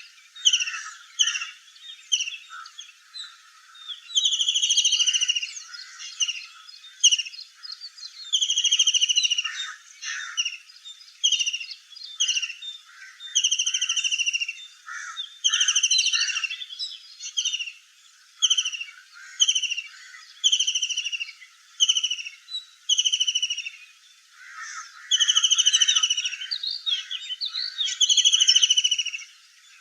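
Birds calling: a steady run of clear, falling whistled notes, about one a second and some drawn out, mixed with shorter chirps.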